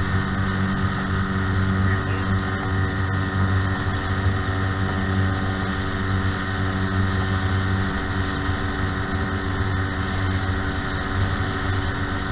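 Bass boat's outboard motor running steadily at cruising speed with the boat under way.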